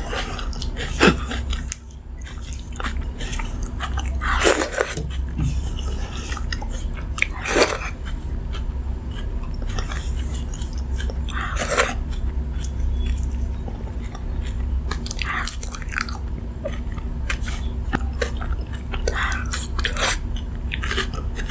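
Close-miked eating: chewing, with a sharp crunchy bite every few seconds, the loudest ones in the first half, over a steady low hum.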